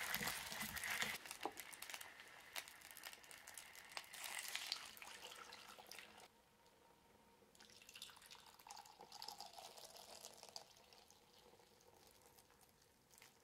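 Taro frying in oil in a clay donabe pot, stirred with chopsticks, crackling and sizzling that thins out over the first few seconds. About six seconds in the sizzle drops away as sake and water are poured in, followed by soft pouring and bubbling of liquid in the pot.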